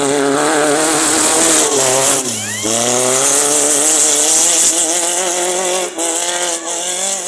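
Off-road race buggy accelerating hard past at full throttle. Its engine note climbs in pitch, drops with a gear change about two seconds in, then climbs again, over a loud steady hiss.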